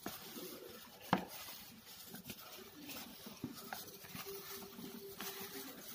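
A plastic-covered hand pressing and working crumbly flour dough in a metal bowl: soft rustling and scraping, with a sharp click about a second in.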